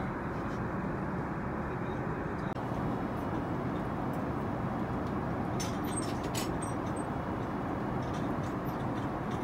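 Steady rushing cabin noise of an Airbus A380 in flight, the airflow and engine noise heard inside the passenger cabin. A few light clicks come around the middle.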